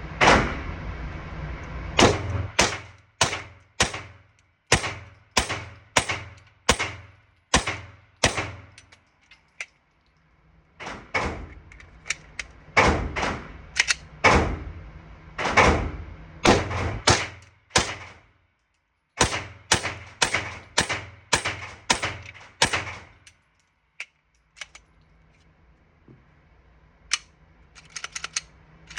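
9mm Glock pistol firing 115-grain full metal jacket rounds: three strings of shots at about two shots a second, each string about ten rounds, with short pauses between them. A few faint clicks near the end.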